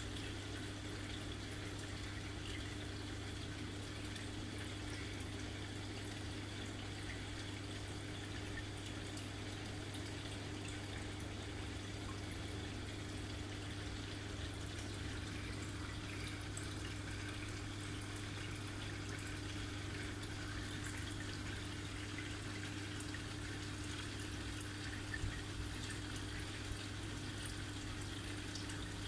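Aquarium filtration running in a betta tank setup: a steady low electric pump hum with water trickling and bubbling throughout. A brief tap sounds once about 25 seconds in.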